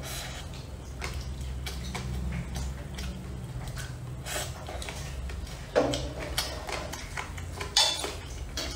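Close-up eating sounds of stir-fried rice noodles being chewed, with scattered wet mouth clicks and chopsticks tapping on a ceramic bowl. Two louder clicks come in the second half, over a steady low hum.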